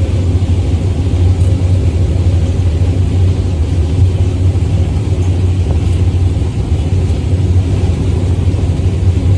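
New Holland TX34 combine harvester running steadily at work, a loud, even, deep rumble.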